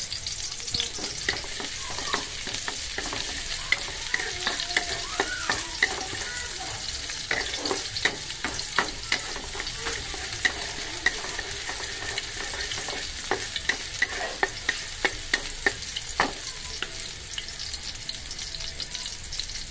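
Chopped garlic and onion sizzling in hot oil in a metal wok, sautéing, with a steady hiss. A wooden spatula stirs them, scraping and tapping against the pan in runs of quick taps.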